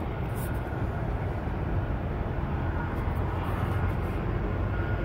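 Distant jet airliner engines running: a steady low rumble with a faint whine, getting slightly louder.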